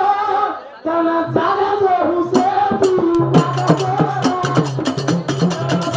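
A man singing a Banjara devotional bhajan through a microphone, breaking off briefly just before a second in. From about two seconds in, hand percussion joins: a quick steady run of sharp clicks over a pulsing low drum beat.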